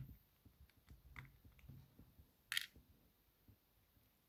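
Faint, scattered clicks of small lock discs and spacers being set down and arranged on a table, with one sharper metallic click about two and a half seconds in.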